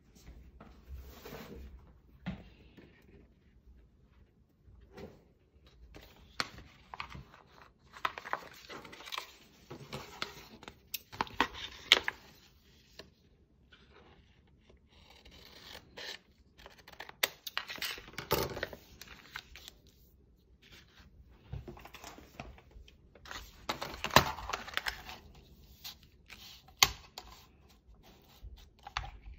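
Heat-transfer vinyl sheet being worked by hand: irregular spells of crinkling, scratching and tearing with sharp clicks, separated by short quiet gaps.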